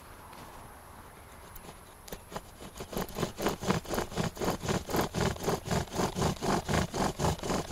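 Bow drill at work: an elderberry spindle, turned by a bow strung with a bootlace, rasping in a steady back-and-forth rhythm against an elderberry hearth board as it burns in the divot. The strokes start about two seconds in and are loud by three seconds in, about three to four strokes a second.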